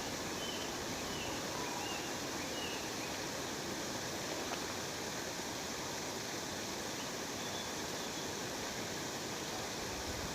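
Waterfall rushing steadily, with a few faint bird chirps in the first three seconds and one more about seven seconds in.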